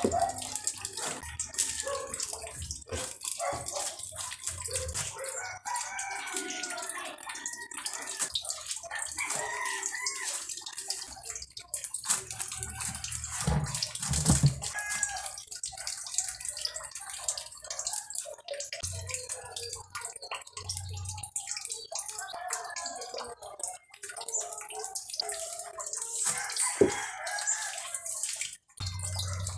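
Chickens clucking and calling, with a rooster crowing, over a steady hiss like running or dripping water; a sharp knock sounds near the end.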